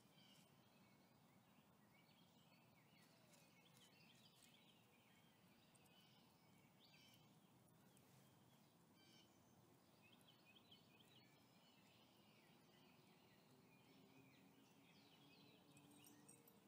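Near silence: faint outdoor background with scattered, distant bird chirps.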